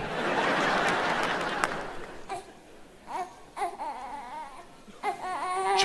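A burst of audience noise, laughing and clapping, fading over the first two seconds, then a baby crying in short, wavering cries on and off.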